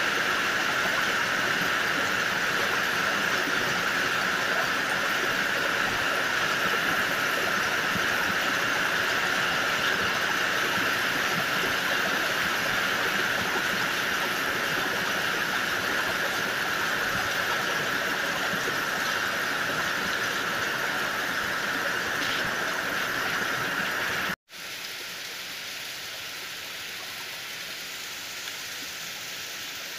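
Heavy rain pouring down steadily as a dense hiss. About 24 seconds in it cuts off sharply, then comes back as softer, quieter rain.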